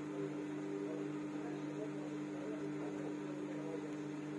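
Samsung washing machine running, a steady hum with fainter wavering tones above it.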